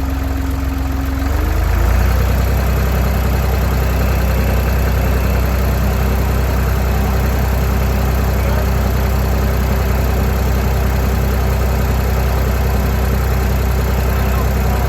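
A motor running steadily with a low hum; about a second and a half in its pitch steps up and it gets a little louder, then holds steady.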